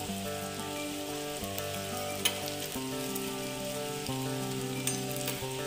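Chicken momos shallow-frying in hot oil in a pan: a steady sizzle, with one sharp click about two seconds in.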